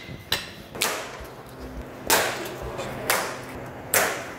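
Knife blows chopping through a whole lamb carcass along the backbone: about five sharp strikes roughly a second apart, each ringing briefly.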